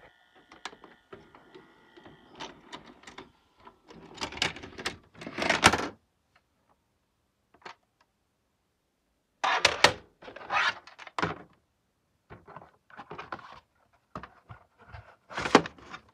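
A VHS cassette and its cardboard sleeve being handled: bursts of plastic clicks, knocks and rubbing. The loudest knocks come about five and a half seconds in and again around ten seconds.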